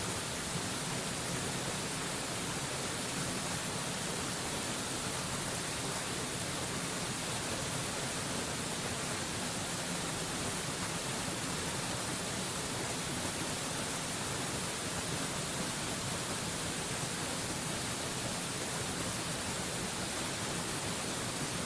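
Steady rushing of a waterfall, an even hiss with no change in level, strongest in the high end.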